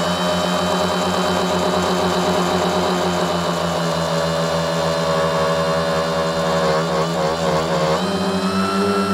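Tricopter's three electric motors and propellers whining steadily in flight. The pitch wavers about seven seconds in, then steps up near the end as the throttle changes.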